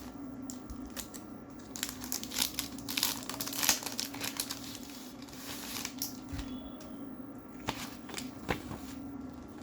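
Packaging crinkling and rustling as it is handled, densest a couple of seconds in, with scattered sharp clicks later, over a low steady hum.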